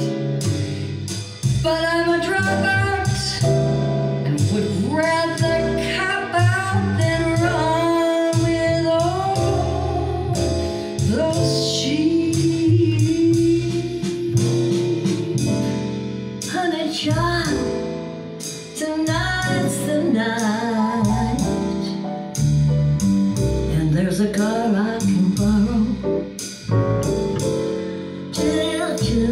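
A song with a singing voice and instrumental backing, played through Aurum Cantus New Grand Supreme floor-standing loudspeakers and picked up by a microphone out in the listening room.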